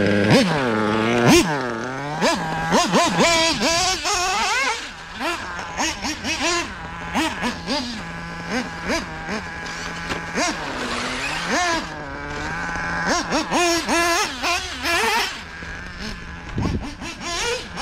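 Ultimate M5 3.5 cc glow engine of a Mugen MBX7R 1/8 off-road buggy running on the track. It revs up and drops back again and again, its buzzing pitch rising and falling with the throttle and settling into a steadier low note between bursts.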